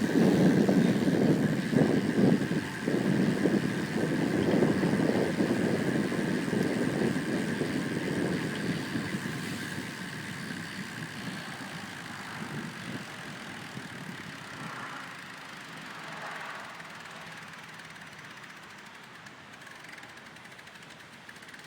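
Road traffic: a motor vehicle's engine rumble, loud at first and fading away gradually over the next fifteen seconds or so.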